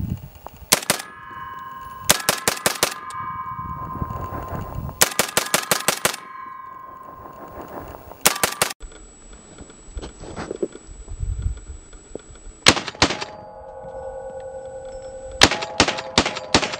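FN SCAR 16S rifle firing 5.56 mm rounds in quick strings of several shots, with pauses between them. Hits on steel propane tanks make the tanks ring with a metallic tone that hangs on after each string.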